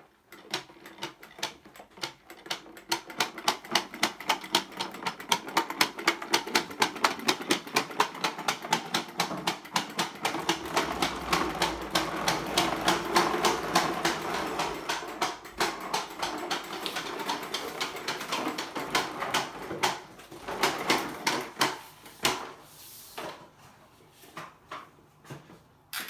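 Toy push lawnmower being pushed along, its mechanism making a rapid, regular clicking of about four clicks a second. The clicking grows busier in the middle, then breaks up and stops near the end, with a few stray clicks after.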